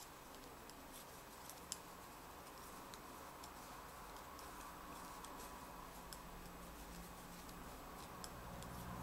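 Faint, irregular clicks of metal knitting needles tapping together as stitches are worked in a knit-2, purl-2 row, the sharpest click about two seconds in.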